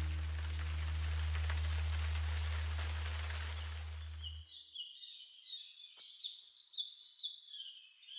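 A steady hiss over a low held chord fades out over the first four seconds. Then birds chirp in many short, quick calls.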